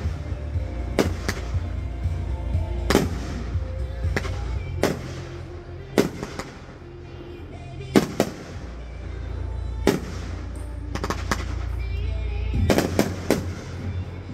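Aerial fireworks shells bursting: about a dozen sharp bangs at uneven intervals, some in quick pairs and a cluster near the end, over a steady low rumble.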